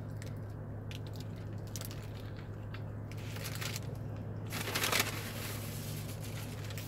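Close-up eating sounds: a bite into a burger and chewing, with its paper wrapper crinkling, loudest about four and a half seconds in, over a steady low hum.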